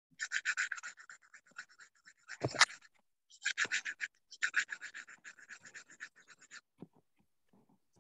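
Rapid scratchy noise through a video-call audio feed, coming in three spells, with one sharp knock about two and a half seconds in.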